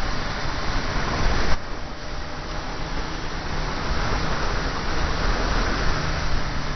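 Motorcycle engine running with wind rushing over the onboard camera's microphone while riding through bends. The rushing noise drops suddenly about one and a half seconds in, then builds again.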